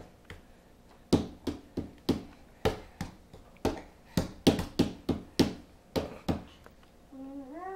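A baby's palms slapping the wooden lid of a storage trunk, a run of about fifteen uneven slaps. Near the end a short voice that rises in pitch.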